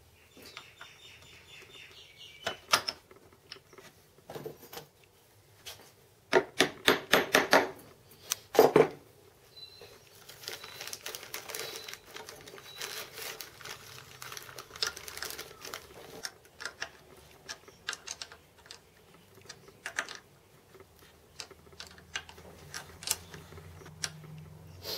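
Metal clicks, clinks and rattles of hand tools and bolts being worked on a machine's motor mount, with a quick run of rapid clicks about six to seven seconds in, a sharp rattle near nine seconds, then a stretch of rustling with scattered ticks.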